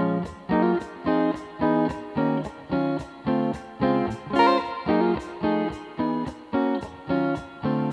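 Background music: a plucked melody in a steady rhythm of about two notes a second, each note sharp at the start and fading quickly.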